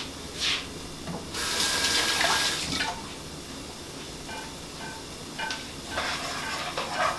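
Water from a kitchen tap runs for about a second and a half and is shut off, followed by a few light clinks of a utensil or dish.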